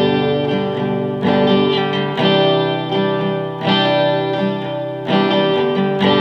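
Acoustic guitar strummed in slow chords, a new chord struck about every second or so and left to ring.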